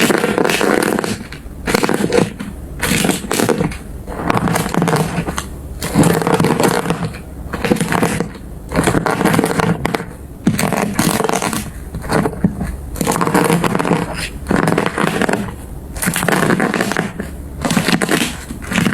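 Slime being squeezed and pressed by hand over and over, roughly once a second, each press a burst of fine crackling noise.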